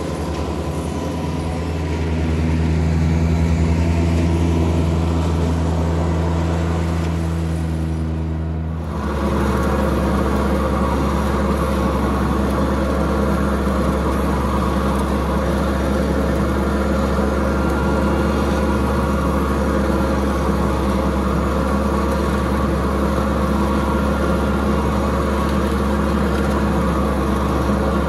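John Deere F935 front mower with its 3-cylinder Yanmar diesel and three-blade cutting deck, running steadily while mowing grass. About nine seconds in the sound switches abruptly to a closer, slightly louder steady engine note, heard from the driver's seat.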